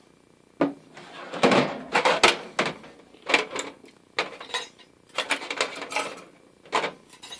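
Metal hand tools (pliers, locking pliers, knives) being set down and shifted about in a bare steel toolbox drawer: an irregular run of metal clinks and clatter, some strikes ringing briefly, loudest in a quick cluster a couple of seconds in.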